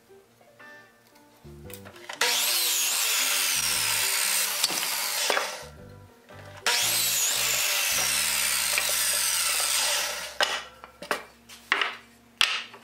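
Electric saw running and cutting through wooden boards twice, each cut about three seconds long; the second cut is on an electric miter saw. Background music underneath, with a few short clatters of wood near the end.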